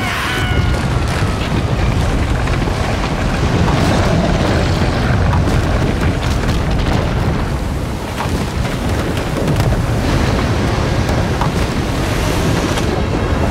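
Animated-film sound effect of a huge flood breaking loose: a loud, continuous deep rumble of rushing, crashing water and ice.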